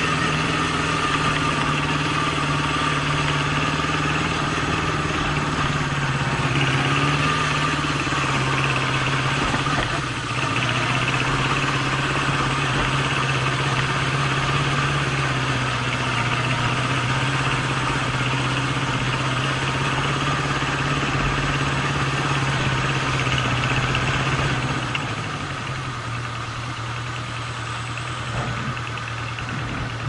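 Honda CB750 motorcycle engine running steadily as the bike is ridden. About 25 seconds in the engine note drops quieter.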